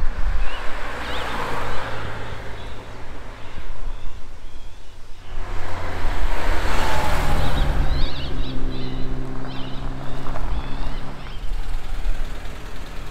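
Triumph TR4 sports car's engine running as the car comes closer at low speed. Its note grows louder and clearer about eight seconds in, then eases near the end as the car slows. Wind rushes over the microphone in two gusts, and birds chirp.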